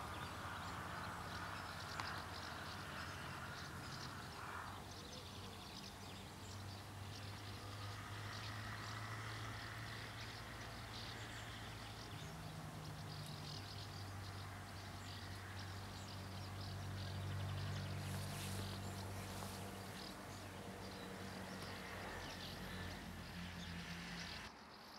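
Outdoor ambience: insects chirping over a steady low hum, with faint scattered ticks; the sound drops off suddenly near the end.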